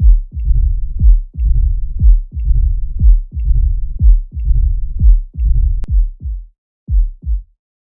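Heart sounds of mitral stenosis: a sharp beat about once a second, each followed by a low rumbling murmur that fills the pause, the diastolic rumble of a narrowed mitral valve. A faint tick follows each beat, and a single sharp click comes near the end before the beats stop.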